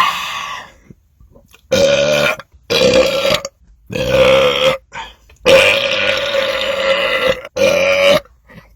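A man belching loudly from carbonated soda: a short sound at the very start, then five separate belches. Each belch holds a steady low pitch, and the fourth runs longest, at about two seconds.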